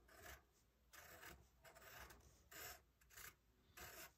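Faint scratching of a wooden pencil on paper as a bumpy line is drawn, in about six short strokes.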